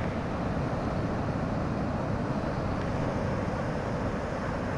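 Steady wind noise buffeting the microphone, a low, even rumble with no distinct events.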